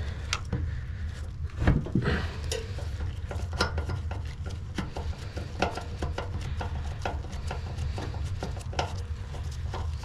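Hand screwdriver backing out a screw from the microwave's sheet-metal magnetron mount: scattered small metal clicks, ticks and scrapes, with a louder knock about two seconds in, over a steady low rumble.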